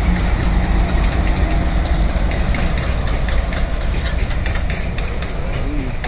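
Diesel locomotives hauling a container goods train pass close by, their engines running with a heavy, steady low hum. Sharp clicks of wheels over the rail joints come irregularly throughout.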